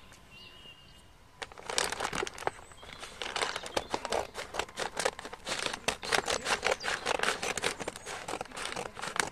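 Stiff brown kraft-paper parcel wrapping crinkling and rustling as it is handled to be opened, with many sharp crackles. It starts about a second and a half in.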